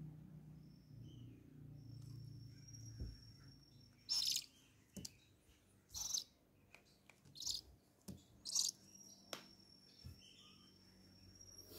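Baby owls giving about five short, noisy begging calls while being hand-fed crickets, with a few sharp clicks between them. A cricket chirps steadily and faintly in the background.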